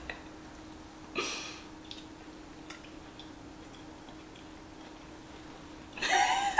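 Quiet pause over a steady low hum while a person tastes food. A short breathy exhale comes about a second in, then a few faint ticks, then a louder breathy vocal burst near the end.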